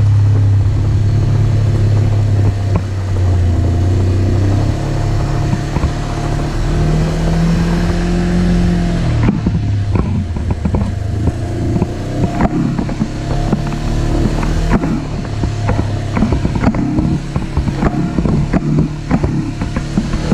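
Side-by-side UTV engine running under way on a dirt trail, its pitch rising for a couple of seconds about seven seconds in. From about nine seconds in the engine note drops back and frequent knocks and rattles come in as the vehicle crosses rough ground.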